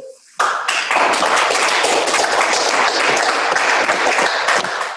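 Audience applauding, the clapping starting about half a second in and holding steady.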